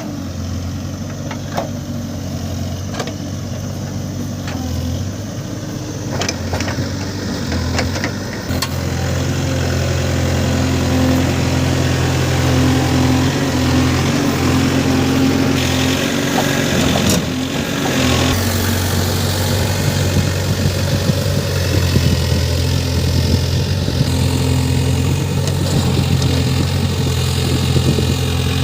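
Diesel engine of a JCB 3DX backhoe loader running steadily as it works loading mud, with a few sharp knocks in the first eight seconds. The engine grows louder about nine seconds in and stays up.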